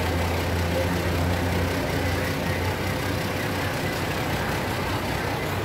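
Diesel passenger train standing at the platform, its engine idling with a steady low hum.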